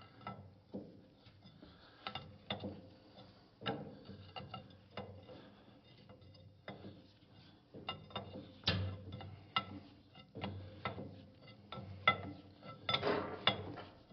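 Irregular metallic clicks and clinks of wrenches working a hydraulic fitting loose, with a faint low hum underneath.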